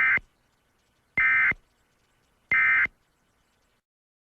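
Emergency Alert System end-of-message signal: three short bursts of SAME digital data, about 1.3 seconds apart, each a rapid two-tone warble, marking the end of the alert.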